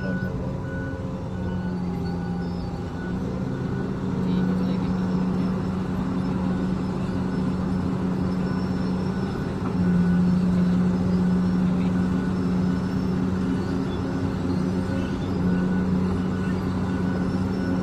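Komatsu PC2000 hydraulic mining excavator running with a continuous heavy engine hum, growing louder about four seconds in and again around ten seconds in.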